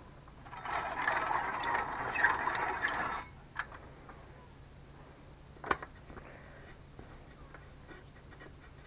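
Metal rattling on a water-well drilling rig for about three seconds, then a click and a single sharp knock, with crickets chirping steadily behind.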